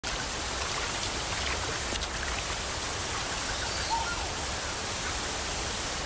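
Steady hiss of rushing water, even and unbroken, with a faint short whistle about four seconds in.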